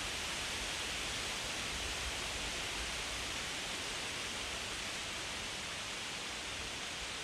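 Autumn wind blowing through trees and rustling leaves: a steady, even hiss that neither swells nor fades.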